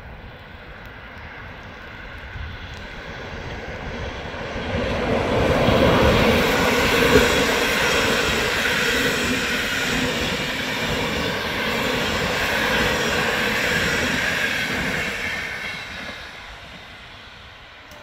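PKP Intercity passenger train passing over a level crossing. The rumble and clatter of wheels on rail build over a few seconds, stay loud for about ten seconds with one sharp clack near the start of the loud part, then fade as the train moves away.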